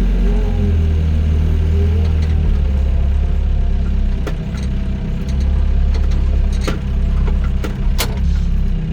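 Doosan DX55 mini excavator's diesel engine running steadily with a wavering hydraulic whine, and a few sharp metallic clanks from about four seconds in.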